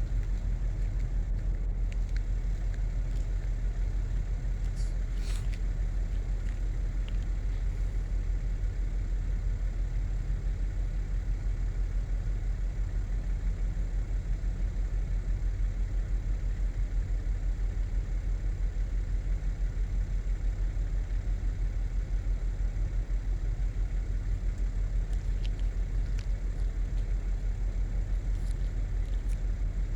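A steady low rumble with no change in level, and a few faint clicks.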